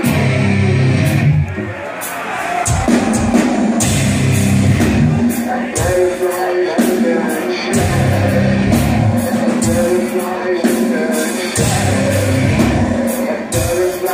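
A nu-metal band playing live: heavy, low guitar chords that change every second or two, with drums and singing, heard loud from within the crowd.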